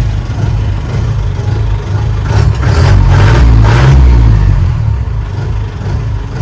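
Mahindra CL550 MDI jeep's diesel engine running just after starting. It is revved for about two seconds in the middle, then settles back to a steady idle.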